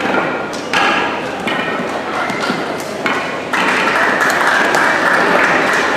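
Large crowd of students cheering and shrieking in short bursts, building to continuous cheering about three and a half seconds in, echoing in a gymnasium, with a few sharp knocks.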